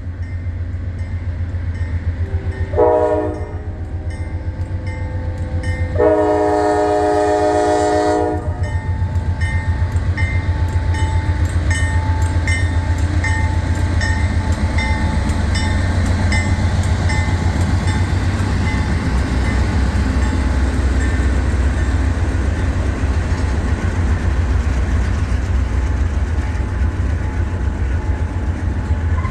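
Norfolk Southern freight train passing slowly. The lead diesel locomotives sound their horn twice, a short blast about three seconds in and a longer one about six seconds in, over the steady low rumble of the engines. After that the rumble goes on, with the regular clickety-clack of the freight cars' wheels over the rail joints.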